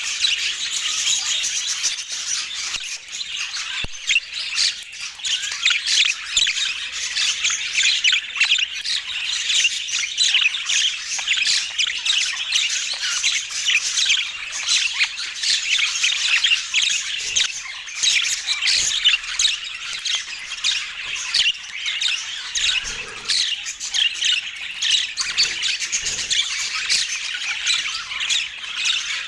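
Budgerigars chattering: a busy, unbroken stream of rapid chirps, warbles and squawks, many birds at once.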